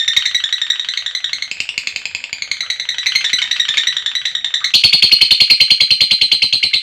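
Female lovebird's long 'ngekek' song: a rapid, continuous chattering of sharp, high notes. The chatter grows louder and denser about two-thirds of the way through.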